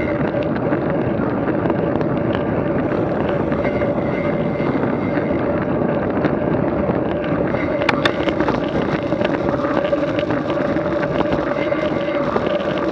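Steady engine drone, holding one pitch, with wind rushing over the microphone.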